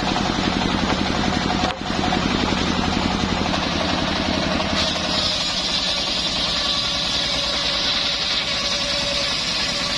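Homemade engine-driven circular saw bench running steadily, its big blade ripping hardwood planks into rafters, with the engine's fast rhythmic chugging under the whine of the cut. There is a momentary dropout a little under two seconds in.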